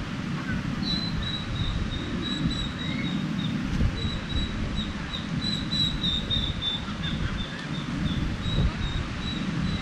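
Steady wind and surf rumble, with a high, thin chirping note repeated in short pieces from about a second in.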